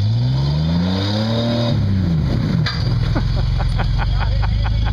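Rock-crawler buggy's engine revving up over about a second and a half and dropping back as it works at a rock ledge, with a sharp knock just before it settles. It then keeps running under a rapid, regular clicking of about six clicks a second.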